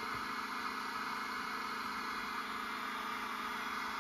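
FlashForge Adventurer 5M 3D printer running with a steady hum and hiss while it purges freshly loaded flexible PLA filament through the heated nozzle.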